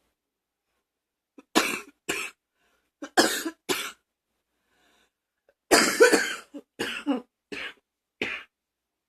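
A person coughing in three fits: two coughs, then three, then a longer cough followed by four shorter ones.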